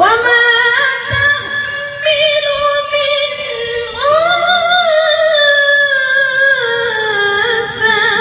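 A woman reciting the Quran in the melodic tilawah style, amplified through a handheld microphone. Her voice starts abruptly on a long held, ornamented note, then rises to a higher note about four seconds in and slowly falls.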